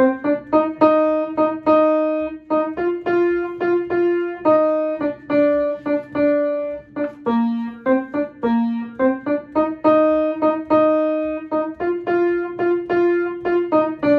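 Upright piano playing a single-line melody, one note at a time in a steady run: the second clarinet part of a folk-song arrangement picked out on the keys.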